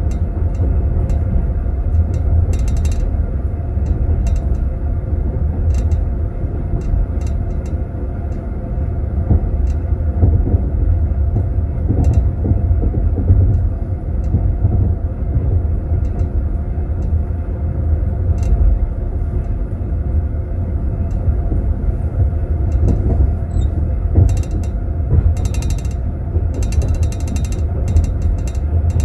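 Steady low rumble of a passenger train's wheels and running gear, heard from inside a sleeper compartment. Frequent light clinks and rattles of teaspoons in tea glasses held in metal glass holders, bunched together near the end.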